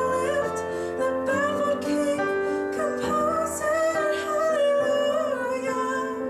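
A woman singing a slow song with a wavering voice over piano accompaniment.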